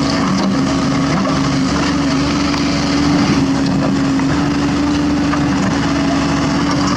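Komatsu PC130F excavator's diesel engine running steadily under power, a constant hum with a strong steady tone.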